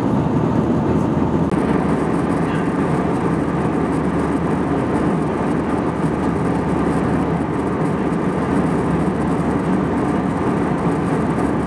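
Steady cabin noise of an Airbus A319 in flight: an even, low rush of engines and airflow heard inside the fuselage. Its tone shifts slightly about a second and a half in.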